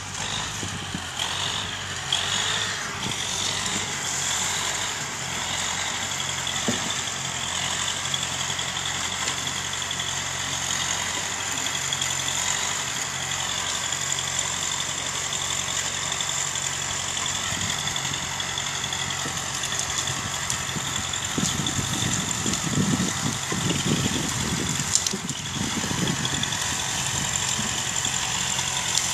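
Universal U-650 tractor's diesel engine running steadily, with a deeper, louder rumble for a few seconds near the end.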